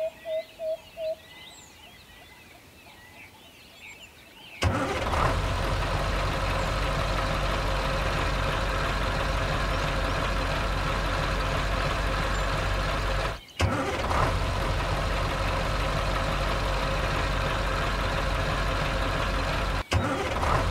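A string of short, evenly spaced beeps ends a second in, followed by a few quiet seconds with faint bird chirps. Then a steady truck-engine sound starts suddenly and runs on at a constant pitch, cut by two brief drop-outs.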